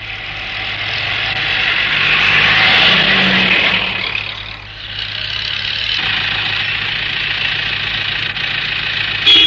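Bus engine running and road noise swelling as the bus passes close by. It eases off about four and a half seconds in, then runs on steadily. A short, loud sound comes near the end.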